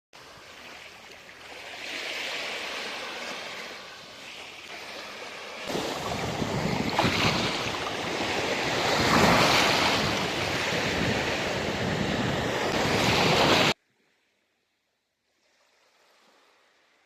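Sea waves breaking and washing up on the shore, swelling and ebbing with each wave, with wind noise on the microphone. The sound cuts off abruptly about two-thirds of the way through, leaving only a faint trace of surf.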